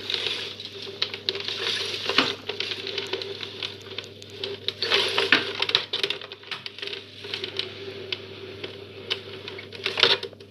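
Long-handled cleaning brush being worked over a surface, its moving part turning again after the repair: irregular clicking and rattling with scratchy scrubbing noise.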